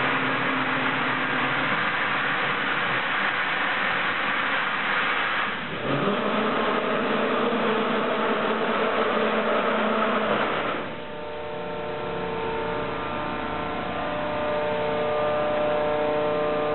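Industrial machinery running: a loud, steady mechanical noise with hiss. About six seconds in it dips and a low rising note starts up and holds. About eleven seconds in the hiss drops away, leaving a steadier hum with several held tones.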